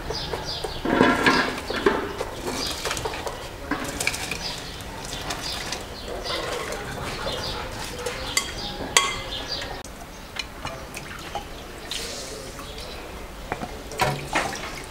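Washed long-grain rice poured from a glass bowl into a pot of boiling water, with a rush of noise about a second in, then a spoon and the bowl knocking and clinking against the metal pot. Near the end, water splashes as peeled eggplants are dipped into a glass bowl of water at a steel sink.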